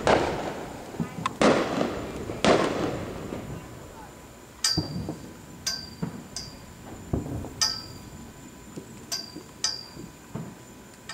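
Aerial firework shells bursting: three loud bangs with long echoing tails in the first three seconds. After that comes a run of about eight sharp clinks with a high ringing tone, roughly one a second, with a few duller thuds among them.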